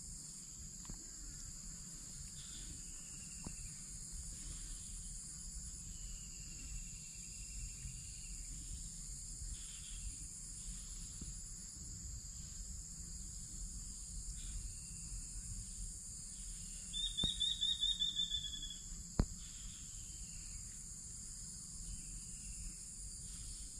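Insects in a steady high-pitched chorus, with short bird calls now and then. About seventeen seconds in comes a brief, loud rapid trill, followed by a single sharp click.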